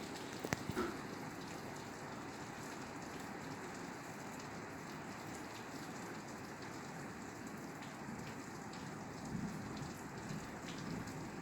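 Steady rain falling on a roof, an even hiss of drops with a few sharper drop hits about half a second in.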